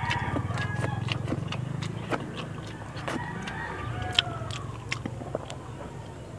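Wet chewing and lip-smacking of someone eating rice and fish by hand, with chickens clucking in the background and a low engine hum that fades away.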